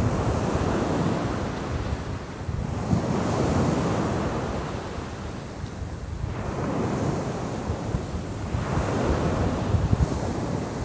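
Sea waves breaking and washing up a pebble beach, the surf swelling and easing every three to four seconds, with wind buffeting the microphone.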